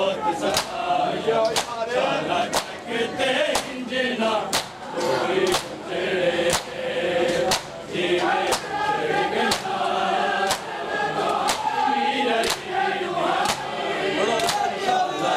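A crowd of men chanting a noha together while beating their chests in unison (matam), with a loud, even hand-on-chest slap about once a second.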